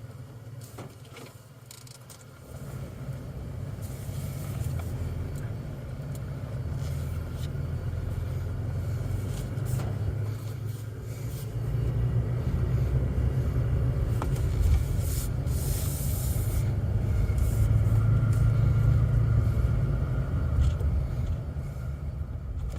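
Low, steady rumble of a motor vehicle running, getting louder about 2.5 s in and again about 12 s in, with a few light clicks.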